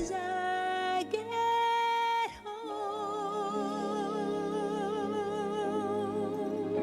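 Background music: long held notes, steady for the first couple of seconds, then wavering with vibrato.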